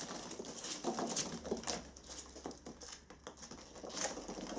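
Polystyrene packing peanuts rustling and pattering as hands scoop them away and they tumble back into a cardboard box: an irregular run of small, light ticks and rustles, thinning out in the middle and picking up again about four seconds in.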